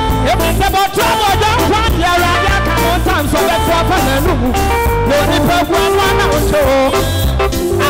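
Live gospel band music with a steady bass and beat, and male vocalists singing into microphones over it.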